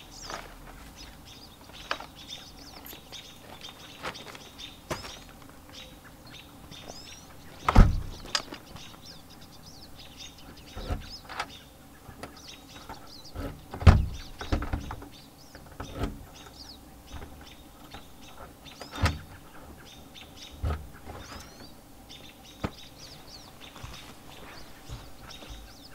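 Door lockset hardware being fitted to a steel exterior door: scattered clicks and knocks, with two louder knocks about eight and fourteen seconds in. Birds chirp faintly.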